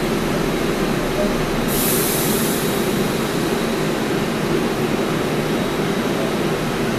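MARTA rapid-transit train standing at an underground station platform with its doors shut, giving a steady low hum. A short hiss of released air comes about two seconds in.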